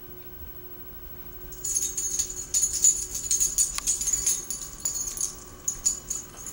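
Small metal jingle bell shaken rapidly, a dense ringing jingle that starts about a second and a half in and trails off near the end.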